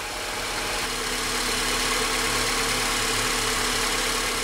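A 2004 Honda Accord's 2.4-litre inline-four engine idling steadily at a fast idle of about 1,300 rpm while it warms up.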